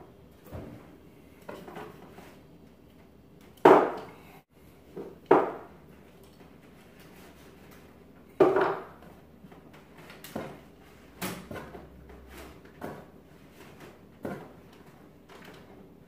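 Knocks and clunks from handling around wooden kitchen cabinets: the cabinet doors being opened and things moved and bumped inside. The three loudest knocks come about four, five and eight and a half seconds in, with lighter taps between them.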